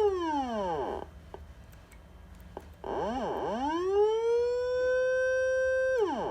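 Electronic police-style siren through its horn loudspeaker. A wavering wail winds down and stops about a second in; after a short pause a new wail swoops, then sweeps up and holds a steady high pitch for a second and a half before dropping off sharply near the end.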